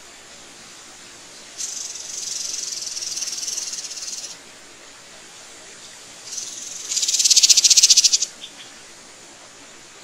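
Two high-pitched rasping buzzes, about two and a half and two seconds long. The second is louder and pulses in a fast rattle.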